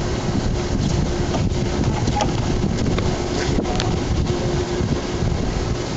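Wind buffeting the microphone, a steady low rumble, with a faint thin tone that comes and goes.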